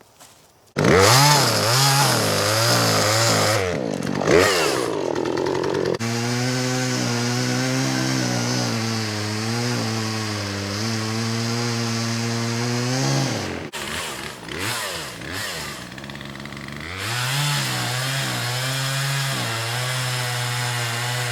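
Two-stroke chainsaw starting up with a few quick revs, then running at full throttle in a steady cut into a large oak trunk, its pitch sagging slightly under load. It eases off for a few seconds past the middle, then revs back up into the cut.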